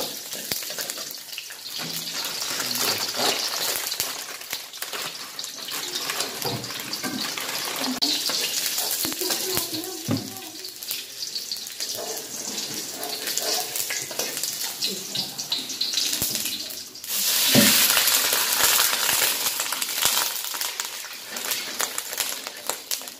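Chopped garlic and spring onion sizzling in hot oil in a wok, stirred with a metal spatula that scrapes and clicks against the pan. About seventeen seconds in, water hits the hot wok with a sudden loud hiss that fades over a few seconds.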